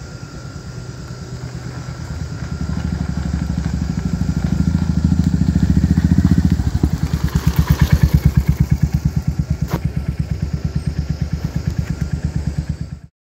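Royal Enfield Hunter 350's single-cylinder engine running, getting louder as the bike approaches, then running close by with an even beat.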